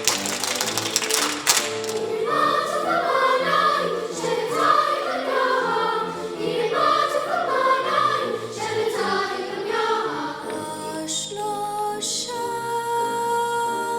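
A choir singing with accompaniment. The first couple of seconds carry a run of quick percussive taps, and the voices settle into long held notes near the end.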